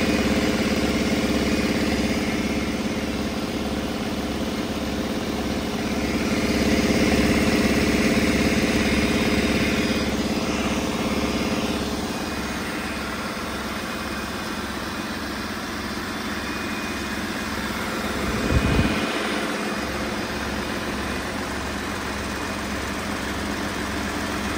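Mercedes-Benz MBE926 inline-six diesel engine idling steadily on a test stand, with an even low firing pulse. A brief thump about three-quarters of the way through.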